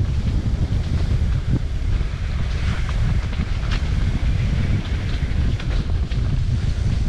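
Wind buffeting the microphone of a mountain biker's camera during a fast downhill run, over a steady rumble of tyres on the dirt trail, with scattered clicks and rattles from the bike.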